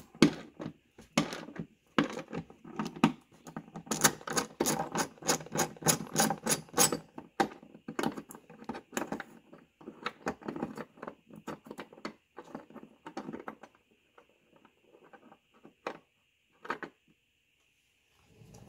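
Door striker bolt being unscrewed from the B-pillar of a 1990–1997 Lincoln Town Car: a run of quick metallic clicks and rattles, densest a few seconds in, then thinning to a few single clicks near the end.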